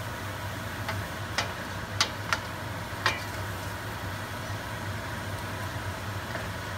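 Chicken liver and onions sizzling in a stainless steel skillet, with a wooden spatula stirring and knocking against the pan about five times in the first three seconds, over a steady low hum.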